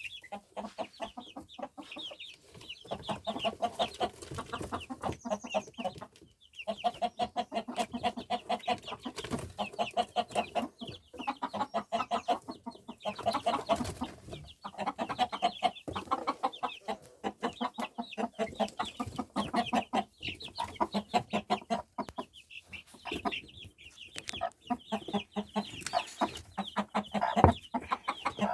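A mother hen clucking rapidly and continuously, with her newly hatched chicks peeping high over it.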